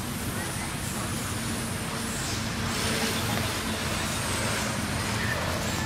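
Steady rumble of motor-vehicle traffic running close by, swelling a little about three seconds in.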